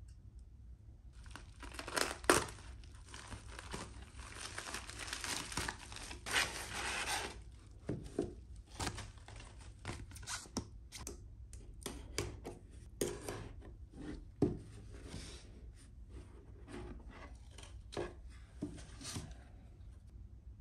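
Plastic courier mailer bag being torn open and crinkled, with a long ripping stretch in the first seven seconds or so. After that, plastic wrapping rustles and cardboard packaging is handled, with scattered sharp taps and clicks.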